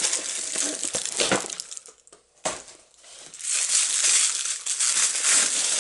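White packing paper crumpled and rustled by hands, in two crackling spells with a short lull and a single sharp snap between them.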